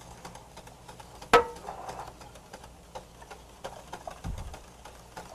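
A utensil clinking and tapping against a stainless steel mixing bowl as liquid gelatin and coconut milk are stirred, with scattered light ticks and one sharper ringing clink about a second in. A soft low thump comes near the end.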